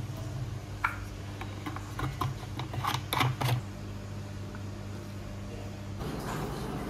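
Light clicks and taps from a small plastic tray being handled, bunched between about two and three and a half seconds in, over a steady low hum. Near the end the hum gives way to an even hiss.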